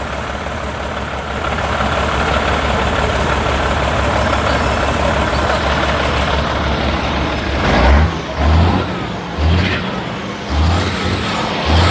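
Heavy dump truck's diesel engine idling steadily, then revved in short surges about once a second from about eight seconds in.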